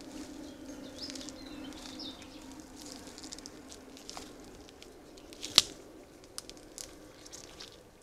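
A young deer moving through grass and brush right beside the camera trap: rustling of stems and leaves with scattered small snaps, and one sharp crack about five and a half seconds in, the loudest sound. A low steady hum fades out about two seconds in.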